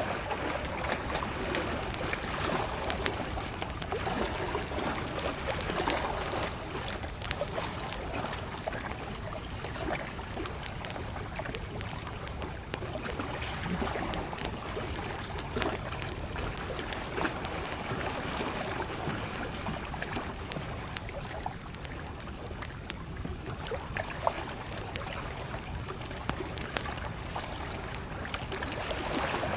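Campfire crackling with many small, sharp pops scattered throughout, over the steady wash of gentle lake waves lapping.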